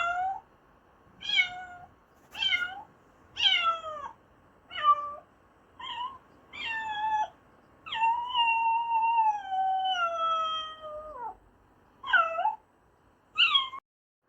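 Domestic cat meowing repeatedly: a string of short meows, with one long meow about eight seconds in that lasts some three seconds and slides slowly down in pitch.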